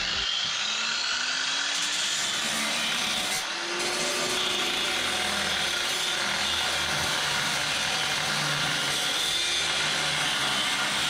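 Power tool grinding or cutting steel: a steady, harsh grinding noise with a brief dip about three and a half seconds in.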